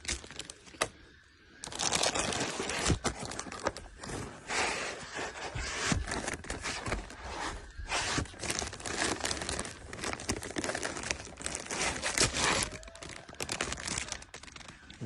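Box of packing material being opened and rummaged through by hand: cardboard and plastic wrapping crinkling, tearing and scraping in irregular bursts, with frequent sharp clicks.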